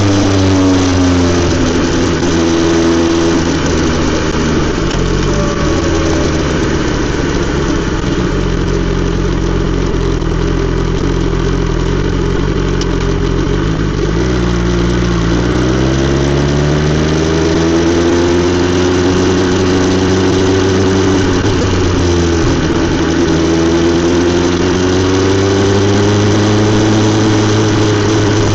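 BMW S 1000 XR's inline-four engine through an Akrapovic exhaust, its note rising and falling with the throttle: it drops at the start, holds low for a while, then climbs about halfway through, dips briefly and climbs again near the end.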